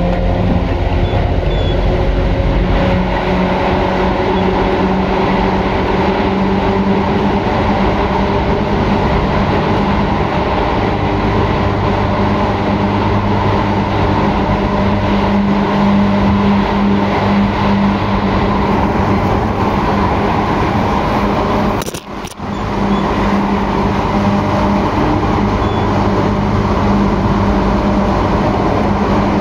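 Loud interior running noise of a Tokyu 8500 series electric train, set 8531F: its Hitachi and Toyo traction motors hum steadily at speed over the rumble of wheels on track. The sound drops out for a moment about three-quarters of the way through.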